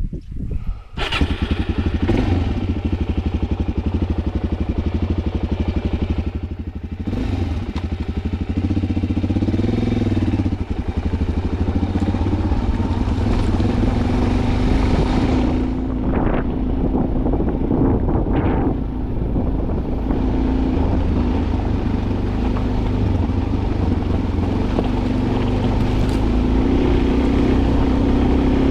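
A motor vehicle's engine running, a steady low drone.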